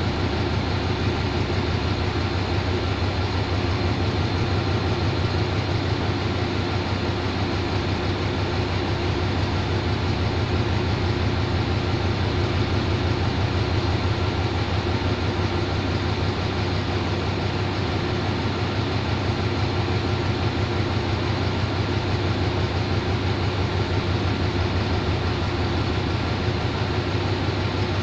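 Diesel locomotive standing at the platform with its engine idling: a steady low drone with a constant hum that does not change.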